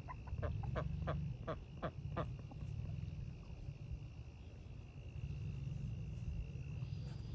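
A quick series of short animal calls, about four a second, stopping a little over two seconds in, over a steady high-pitched drone.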